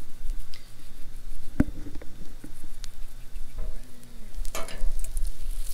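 Butter sizzling lightly in a frying pan as seasoning is shaken into it, with a sharp knock about one and a half seconds in and a low rumble underneath.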